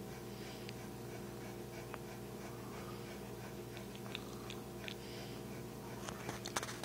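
Soft animal sounds over a steady low hum: a cat licking and nuzzling a Newfoundland dog's fur while the dog pants quietly. A few sharp clicks near the end.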